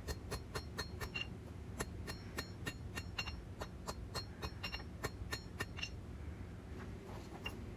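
Rapid light hand-hammer blows on hot steel over an anvil, about three or four a second with a short metallic ring after each, as the tip of a seax blade is forged; the blows slow near the end. A steady low hum lies underneath.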